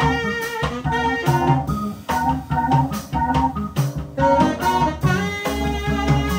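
Live band playing funky mod jazz: Hammond-style organ chords over guitar, bass and a steady drum beat.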